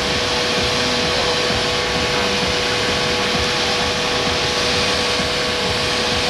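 Lamborghini Gallardo LP570-4 Superleggera's V10 engine idling, a steady sound with no revs.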